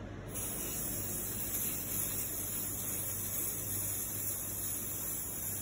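Aerosol can of black spray paint spraying in one long continuous hiss, starting about a third of a second in.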